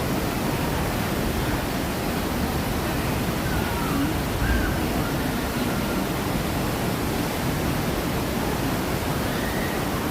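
Steady rushing of water from the Grizzly River Run rapids and falls, with faint distant voices over it.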